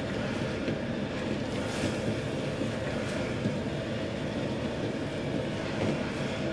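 Restaurant wok burner running at full flame with a steady rumbling rush, and diced onions and dark sauce sizzling in the wok as they are stirred.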